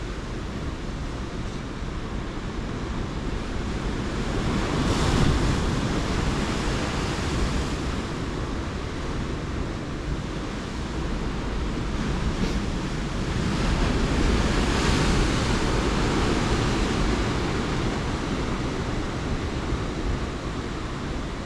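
Atlantic surf on a rocky coast, with waves surging in twice as two slow swells in the noise, the first about five seconds in and the second about two-thirds of the way through. Wind buffets the microphone throughout as a low rumble.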